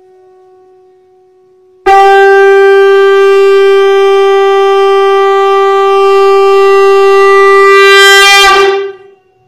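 Shankh (conch shell) blown in one long, loud, steady note that starts abruptly about two seconds in and holds for about seven seconds, growing brighter near the end before it cuts off.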